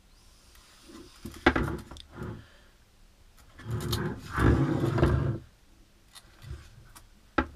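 Handling noise from a plastic electric detail sander being turned over in the hands and its power cord moved across the bench: scattered clicks and knocks, with a louder rough rustle lasting about a second and a half around the middle. The sander is not running.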